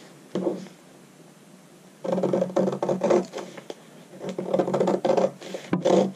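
Scissors cutting through pattern paper in runs of crisp snips, one starting about two seconds in and another about four seconds in.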